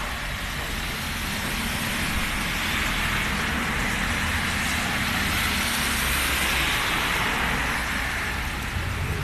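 Heavy typhoon rain and strong gusting wind: a steady rushing noise with a low rumble, swelling and easing again in the middle.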